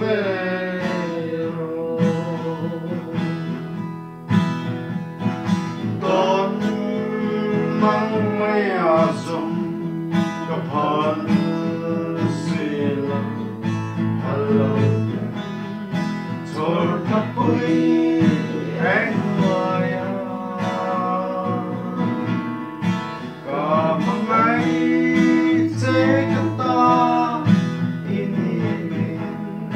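A man singing with an acoustic guitar accompaniment, the guitar played steadily under the voice.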